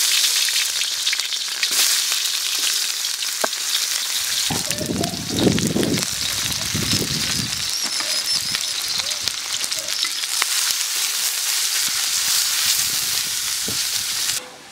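Food sizzling as it fries in hot oil, a steady dense hiss that starts and stops abruptly. A brief lower rumble comes about five seconds in.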